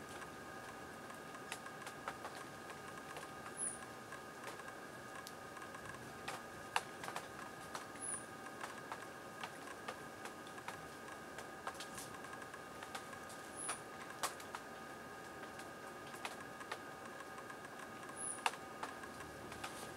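Faint outdoor ambience: a steady hum of several fixed tones, scattered sharp clicks and taps, and a very high, short chirp about every five seconds, four in all.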